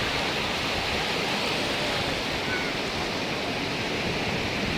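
Steady rush of sea surf on a beach, with faint distant voices now and then.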